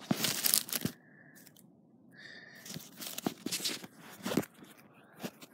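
Handling noise from a phone being gripped and moved about, with fingers rubbing and knocking against it close to its microphone. There is a loud scrape with knocks in the first second, a short lull, then more scraping and sharp knocks.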